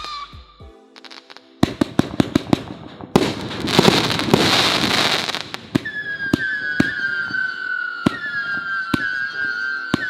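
Brothers Sunbelt Sizzle 30-shot 500-gram firework cake firing: sharp breaks, then a dense burst of crackle. From about six seconds in, howling tails whistle and fall in pitch, with a sharp shot about every second.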